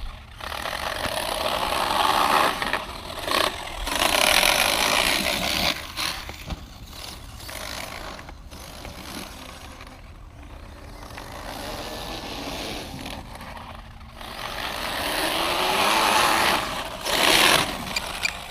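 Traxxas X-Maxx electric RC monster truck driving in bursts. Its motor and drivetrain whine up and fall away with each burst of throttle. The driver suspects the rear differential is failing and says the truck keeps losing power.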